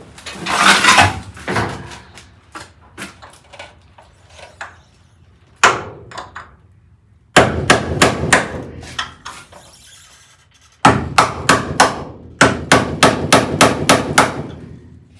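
Hammer striking the heated door hinge pin of a 1958 VW Type 2 bus to knock the stuck pin out. A single blow comes about six seconds in, a short run of blows a second or so later, and near the end a fast run of about four blows a second.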